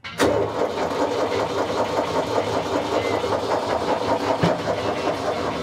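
1982 Fiat 440 tractor's diesel engine cranking on its starter motor with the injector lines cracked open, to bleed air from the fuel system. The loud, steady sound starts abruptly just after the beginning.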